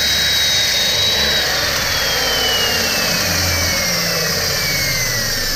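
Electric power tool running loud, its motor whine holding high and then sliding steadily lower from about a second in.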